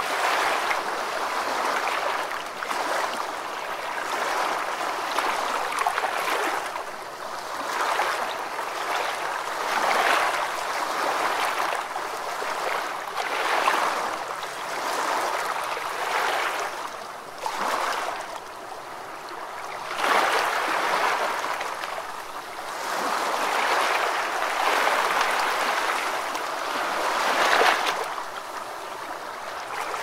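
Flowing water: a steady rushing and babbling that swells and eases every few seconds.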